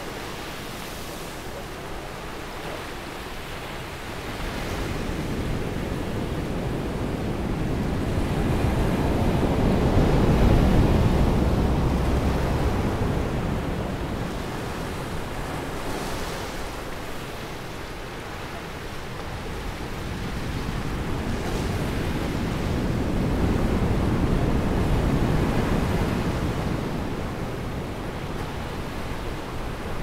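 Small ocean waves breaking and washing up onto a sandy beach, the surf rising and falling in two long swells, loudest about ten seconds in and again near twenty-five seconds.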